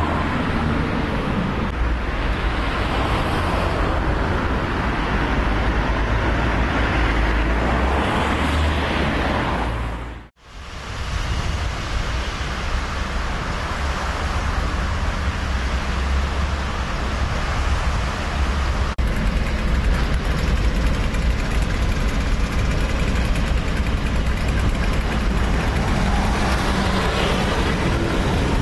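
Steady road-traffic rumble and hiss. It drops out abruptly for a moment about ten seconds in, then a similar steady background noise carries on.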